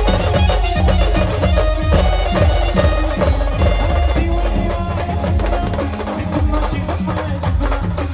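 Brass band playing a Marathi devotional folk tune: held melody lines from the wind instruments over a steady, driving drum beat.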